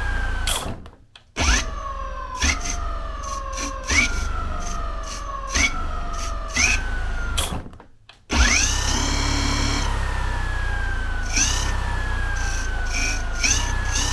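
Laotie ES19 electric scooter's rear hub motor whining as its wheel is spun up. The pitch jumps up with each throttle blip and slides slowly down as the wheel coasts, several times in a row. It cuts out briefly twice, about a second in and about eight seconds in.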